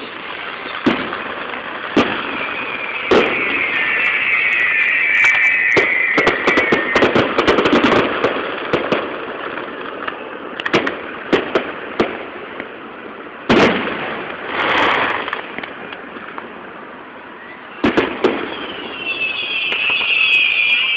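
Fireworks display: aerial shells bursting with sharp bangs at irregular intervals and stretches of dense crackling. Twice a long, high whistle slowly falls in pitch.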